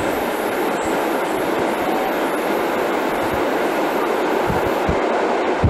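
Train running on rails: a steady rushing rumble of wheels and track, with a few short low thumps from wheels crossing rail joints in the second half.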